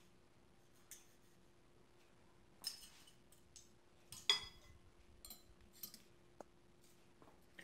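Metal spoons clinking and clattering as they are picked up from a small table: a handful of separate short clinks, the loudest about four seconds in.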